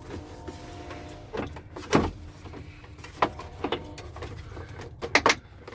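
Hard plastic clicks and knocks as a 1998 Dodge Dakota's glove box latch parts are pried and worked loose by hand. There is a sharp knock about two seconds in and a quick cluster of snaps near the end, over a faint steady hum.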